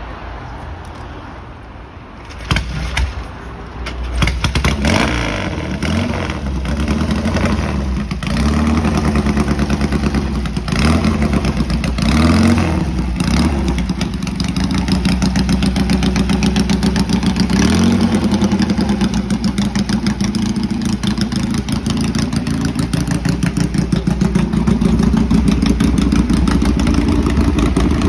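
A vintage motorcycle engine starts about two and a half seconds in. It is blipped up and down several times, then settles into a steady idle.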